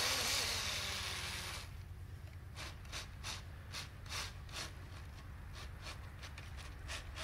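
3D-printed RC snowmobile's electric motor and track running as it drives off across the snow, fading out over the first second and a half. After that comes a run of soft crunches in the snow, about three a second.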